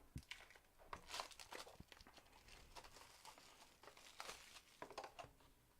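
Faint crinkling, tearing and small clicks of trading-card packaging being handled and opened: plastic wrap and cardboard boxes.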